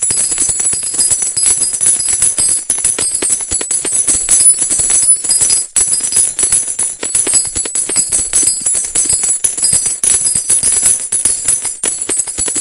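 Large metal coins falling in a continuous stream, a dense clatter of clinks with bright metallic ringing, thinning briefly about six seconds in.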